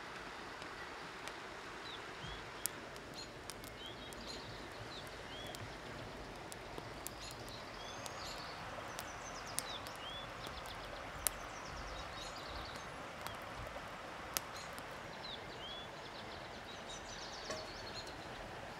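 Outdoor ambience of a flowing river: a steady rush of water with small birds chirping and trilling now and then, and a handful of sharp single snaps from a wood fire crackling.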